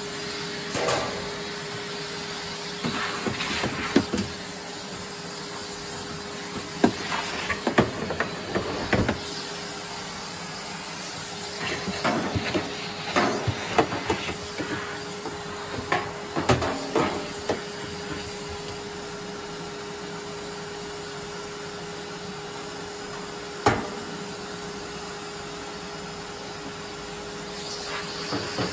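Vacuum cleaner running steadily with a constant whine, with irregular knocks and scrapes as it works inside an opened tumble dryer, sucking out dust; a sharp knock about four seconds in and another near twenty-four seconds.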